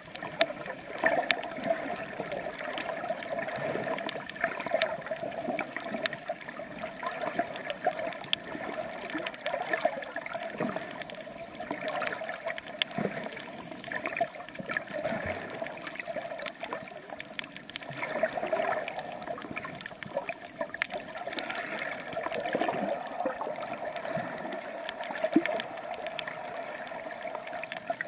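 Water sloshing and gurgling around a snorkeler's camera as it swims along the reef, steady throughout with many small clicks scattered through it.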